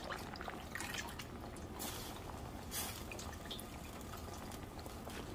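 A pot of broth simmering, with scattered small pops and ticks of bubbles over a faint steady hiss.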